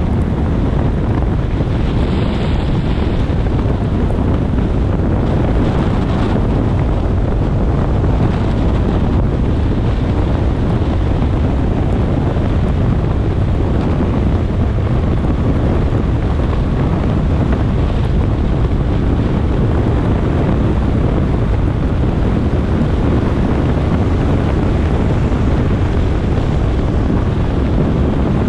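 Steady, loud rush of wind buffeting a GoPro's microphone, mixed with tyre and road noise from a car driving at speed on a wet expressway in the rain.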